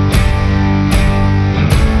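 Background rock music with guitar over a steady beat, a strong hit a little more often than once a second.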